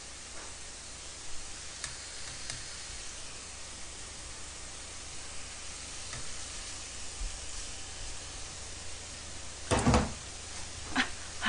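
Pork belly sizzling in a frying pan, a steady hiss, with a few light clicks of chopsticks against the pan. A single loud thump comes near the end.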